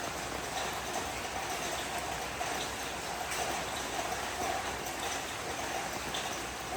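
Steady rain falling softly: an even, unbroken hiss with occasional faint drop ticks.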